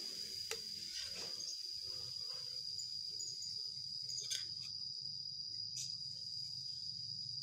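A steady high-pitched trill, typical of a cricket, with a metal spatula clinking and scraping in a wok a few times as it stirs.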